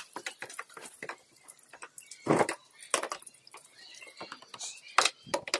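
Irregular clicks and knocks of handling and tool work, with a louder knock about two seconds in and another near the end.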